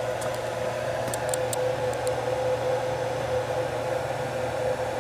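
Steady machine hum with a high steady tone and a lower hum underneath, with a few faint ticks about a second in.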